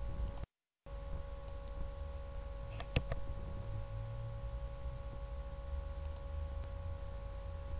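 Steady electrical hum and low background noise on the microphone line. The sound drops out completely for a moment just after the start. A short cluster of sharp clicks comes about three seconds in.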